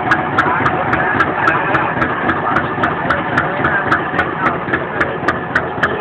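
Fishing boat's engine running steadily, with a regular clacking beat of about three strokes a second.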